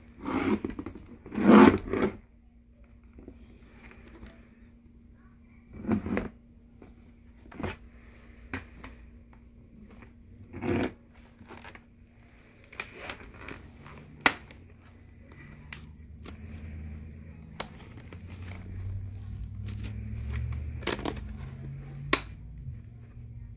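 Handling noise from a Ruroc Atlas 2.0 motorcycle helmet being turned over and prodded by hand: irregular rubbing and scraping of the shell and the mesh padding, loudest in the first two seconds, with a few sharp clicks and knocks. A faint steady hum runs underneath.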